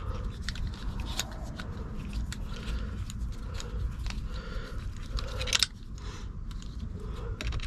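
Small irregular clicks and scrapes of a hand tool tightening a wiring connection, over a steady low rumble.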